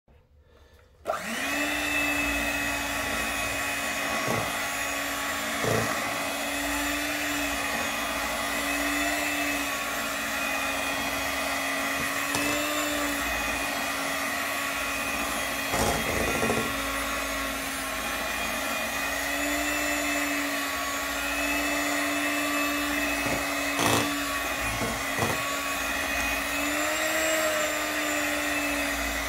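Electric hand mixer running as its beaters whip banana cake batter in a bowl, a steady whirr that starts about a second in. Its pitch wavers slightly, and the beaters knock against the bowl a few times.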